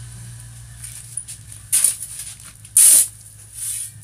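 Shovel scraping across a concrete floor as it digs into a pile of loose dirt: a short scrape a little before two seconds in, then a longer, louder one near three seconds.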